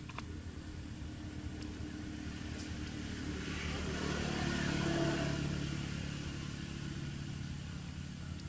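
Engine of a passing motor vehicle: a steady low hum that grows louder, peaks about five seconds in, and then fades away.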